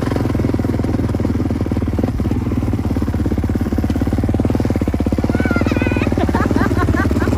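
Motocross dirt bike engine running steadily close by, its rapid firing pulses even throughout.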